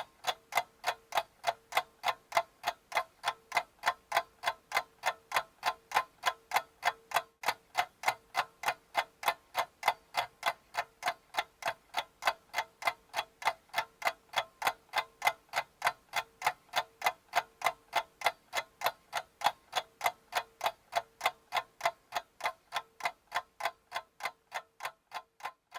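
Steady, even ticking, about three ticks a second, like a clock, over a faint steady hum.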